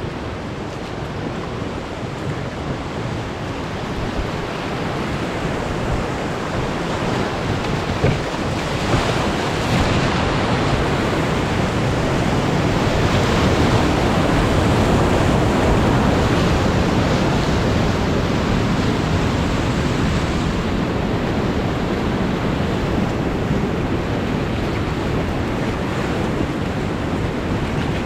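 Whitewater rapid rushing and splashing around a raft, a continuous wash of water noise that swells louder toward the middle and eases slightly later. A couple of brief knocks come about eight and nine seconds in.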